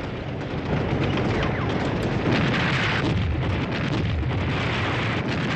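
Battle sound of explosions and gunfire, one blast after another with many sharp cracks, loudest a little over two seconds in.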